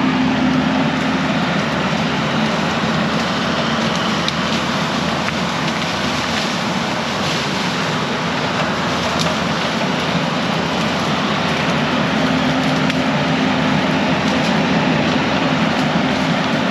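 A vehicle or machine engine running steadily with a constant hum under a loud wash of mechanical noise.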